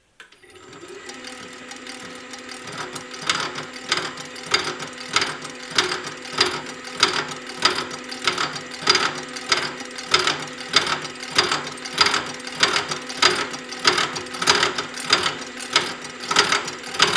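Metal-cutting machine starting up and slicing through a clamped stack of turned steel ring blanks to cut snap rings: a steady running hum that builds, with a regular sharp tick about one and a half to two times a second from about three seconds in.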